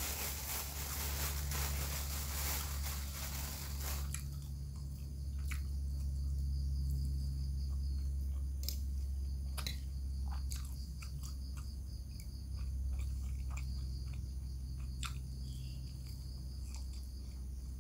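Close-up chewing and biting of rice, bamboo-shoot vegetable and chicken, with scattered sharp clicks of a spoon on the plate, over a steady low hum. A hiss in the background cuts off about four seconds in.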